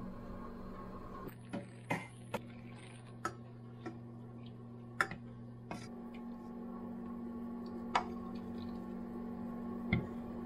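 A string of short, sharp clinks and taps of a ladle and dishes against a stainless-steel pot and bowl while miso soup is served, over a steady low hum.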